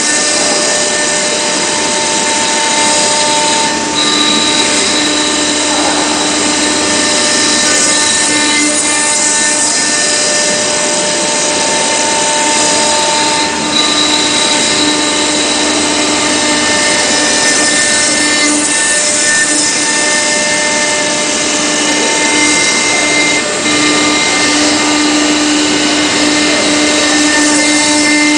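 Marble-engraving CNC router spindle carving the stone: a steady loud whine with several held tones over the hiss of the bit cutting, dipping briefly three times.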